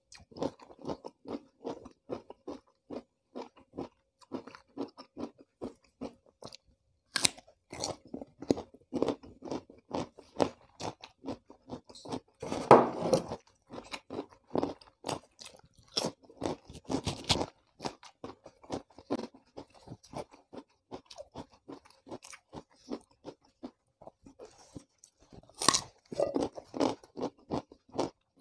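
A person chewing raw vegetables dipped in sambal close to the microphone: a quick, steady run of crunching chews, with several louder crunchy bites, the longest and loudest about halfway through.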